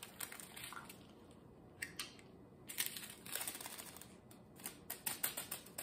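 Light, irregular clicking and crinkling of diamond painting resin drills being handled in their small plastic bag, in clusters with a quieter stretch between.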